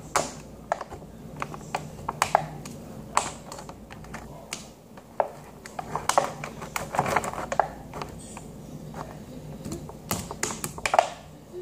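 Hands working slime out of a clear plastic tub: an irregular run of sticky clicks, crackles and taps against the plastic, busiest around the middle.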